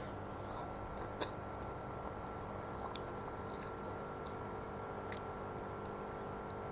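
A person chewing a mouthful of chicken noodles close to the microphone, with scattered sharp mouth clicks and crackles, the loudest about a second in, over a steady low hum.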